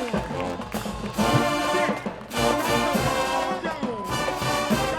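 Marching band brass section playing loud punchy phrases over drums, with short breaks between phrases.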